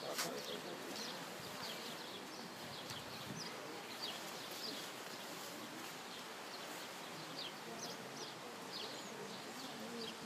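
Small birds chirping: many short, high chirps scattered throughout over a steady outdoor hiss, with one sharp click right at the start.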